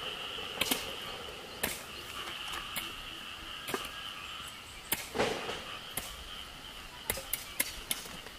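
Scattered sharp clicks and taps from hands sowing seeds by hand into dry, crumbly soil, several of them close together near the end, over a steady high-pitched insect drone.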